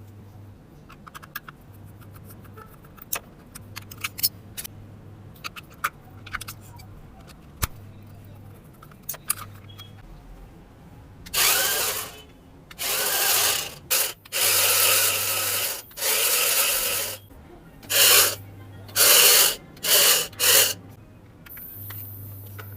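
Small electric motor of a remote-control drift car whirring in about eight short bursts during the second half, as the throttle is blipped. Before that come scattered light plastic clicks and ticks from the car and its parts being handled.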